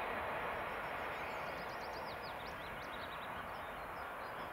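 ET2M electric multiple unit running in the distance, its rolling noise slowly fading as it moves away. A small bird sings a quick run of high chirps in the middle.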